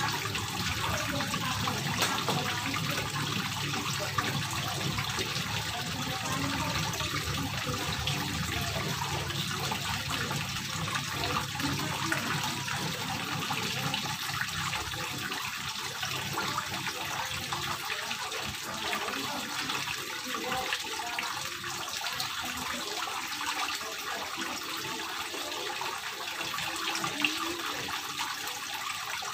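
Water from a grooved stone wall fountain running down the slab and spilling over a ledge into a garden pond: a steady trickling and splashing.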